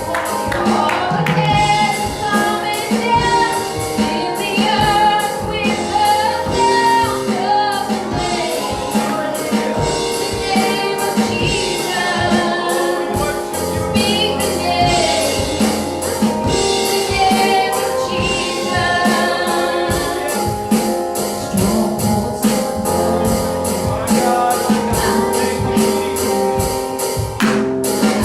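Live gospel worship music: singers with a band, a tambourine keeping a steady beat.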